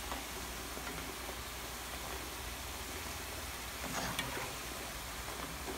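Namkeen matri strips deep-frying in hot oil in a wok, a steady crackling sizzle, with a few light clicks about four seconds in. The strips are still pale, frying over a medium flame toward golden brown.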